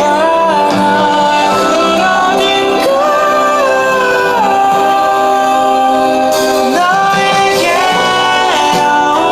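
A Korean song: a held, gliding sung melody over instrumental accompaniment.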